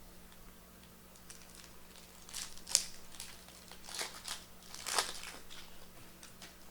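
A foil trading-card pack wrapper being torn open and crinkled in three short bursts of crackling, the sharpest about two and a half seconds in.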